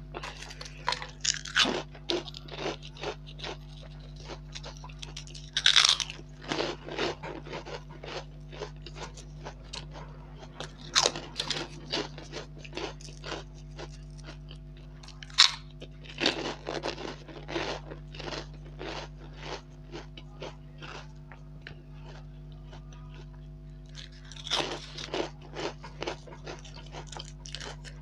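Close-miked crunching and chewing of crisp, fish-shaped fried snacks, with loud bite crunches about six, eleven, fifteen to sixteen, and twenty-four seconds in and a steady run of smaller crunches between. A faint steady hum runs underneath.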